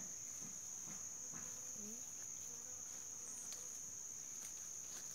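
Steady high-pitched insect buzz, one unbroken tone, with a few faint clicks scattered through it.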